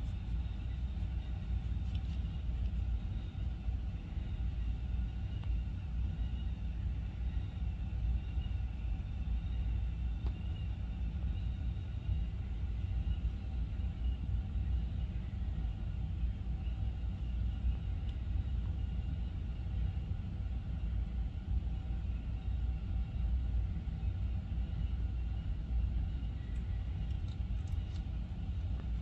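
Steady low background rumble that does not change, with a faint thin hum above it.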